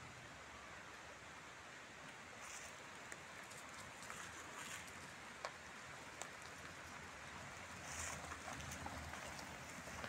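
Toyota Prius (second generation) rolling slowly over a leaf-covered path: a quiet hiss of tyres on leaves and grit, with scattered small crackles and snaps, getting louder about eight seconds in as the car draws close.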